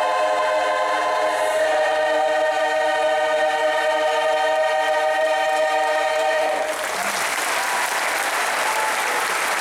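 Large women's barbershop chorus singing a cappella, holding a long closing chord that shifts once about a second and a half in and cuts off about seven seconds in, when audience applause takes over.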